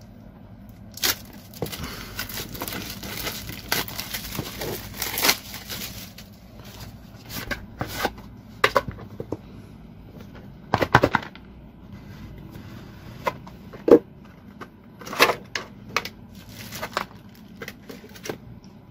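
Clear plastic wrap crinkling as it is peeled off a cardboard box. This is followed by the box being opened and its contents handled, with scattered clicks, knocks and rustles of plastic bags.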